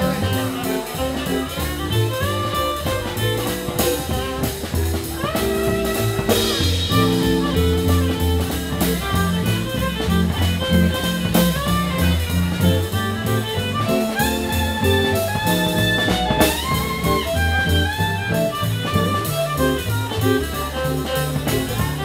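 Live swing jazz from a quartet of violin, guitar, double bass and drums. The violin plays sliding melodic lines over the bass notes and the guitar and drum rhythm.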